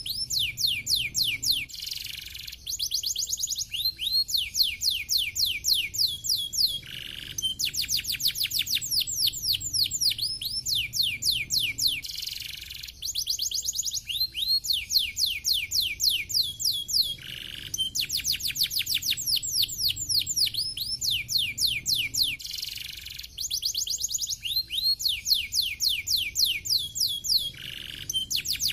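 Caged domestic canary singing a fast, tightly packed song of rapid downward-sweeping trill notes. The same phrase comes round about every five seconds.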